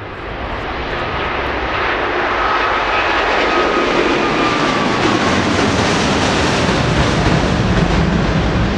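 Jet noise from an Airbus A350-1000's two Rolls-Royce Trent XWB turbofans as the airliner climbs steeply away. The sound grows louder over the first two seconds and then holds steady, with a whine that falls in pitch as the aircraft passes.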